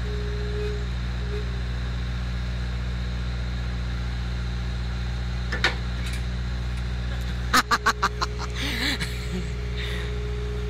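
Skid steer loader's engine running steadily while it pushes a trailer, with a quick run of about six sharp metal clanks a little over two-thirds of the way through, after which a steady whine joins the engine.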